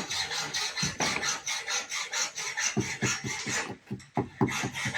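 Rapid back-and-forth rasping strokes of a hand tool working a piece of material, about five strokes a second. The strokes stop just before the end and are followed by a few sharp knocks.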